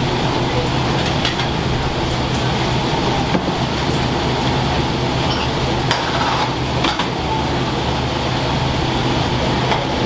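Restaurant kitchen noise: a steady low drone, as from extractor fans and burners, with a few sharp clinks of dishes and utensils.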